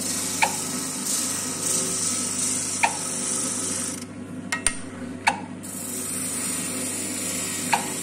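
Spindle sander running with a steady motor hum while a small wooden piece is pressed against the sanding drum, giving a high sanding hiss. The hiss drops out for about a second and a half near the middle as the piece is lifted off, then returns; a few sharp clicks are heard along the way.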